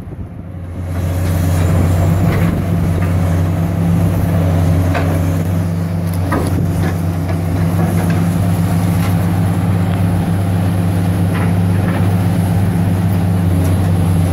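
Heavy diesel engines of demolition excavators running steadily under load, with scattered sharp cracks and clatters as the machines' crusher jaws break concrete and rubble falls.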